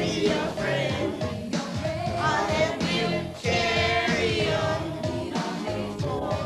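A pop song: voices singing long, wavering notes over an instrumental backing.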